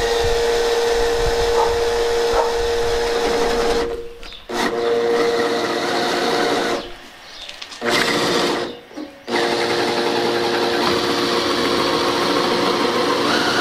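Makita cordless drill running under load as it bores through the boat's plywood transom for a drain plug hole: a steady motor whine in four stretches, stopping briefly about four, seven and nine seconds in.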